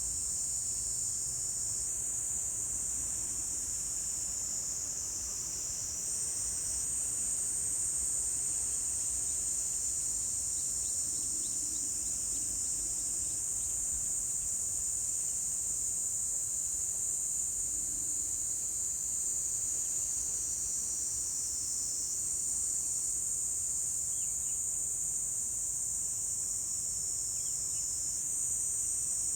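Insects singing in a steady, high-pitched continuous chorus, several voices overlapping and shifting a little every several seconds.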